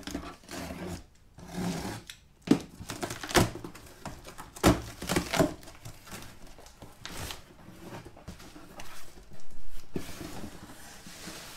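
Cardboard box being opened: packing tape cut and torn loose and the flaps pulled open, a run of sharp rips and scrapes. Near the end, plastic bubble-wrap packing rustles as a hand reaches in.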